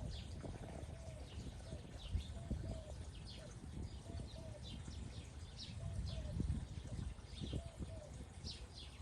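Birds chirping, with many short falling chirps and shorter low calls repeating every second or so, over a low rumble.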